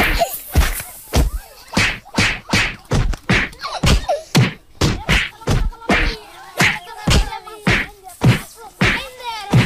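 A fast, even run of punch-like whacks and thuds, about three a second: fight sound effects.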